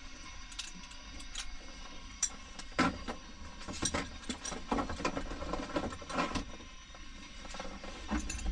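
Scattered clicks, knocks and rustles of hands working switches and controls in a small plane's cockpit, thickest in the middle seconds, over a faint steady hum.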